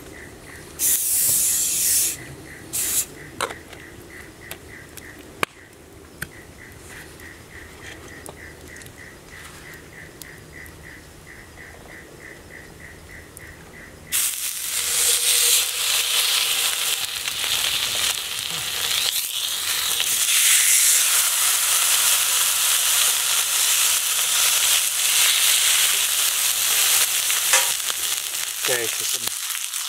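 Wagyu steaks hitting a hot cast-iron griddle over wood coals: a loud frying sizzle starts suddenly about halfway through and keeps going as more steaks go down.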